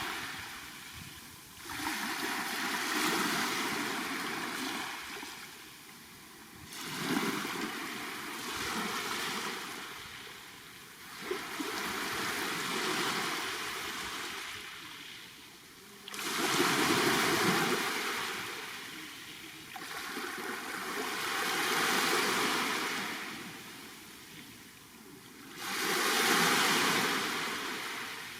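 Black Sea waves breaking on the shore and washing back, a new wave surging in about every four to five seconds.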